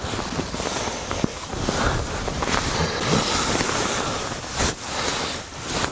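Wind rushing and rustling against the fabric of an ice-fishing tent in a blizzard, with a few light knocks.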